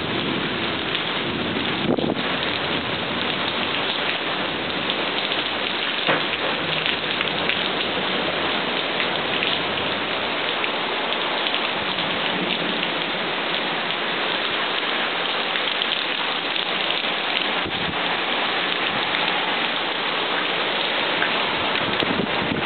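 Rain falling steadily in a thunderstorm: an even, unbroken hiss with no distinct thunderclap.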